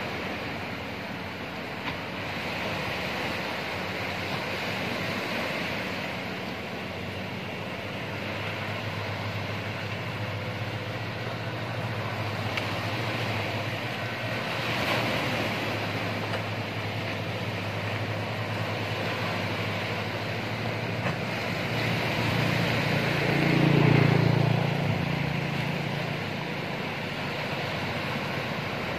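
Surf breaking and washing, with the outboard motor of an outrigger fishing boat running as it heads out through the waves. The motor's hum grows in the second half and is loudest about three quarters of the way through.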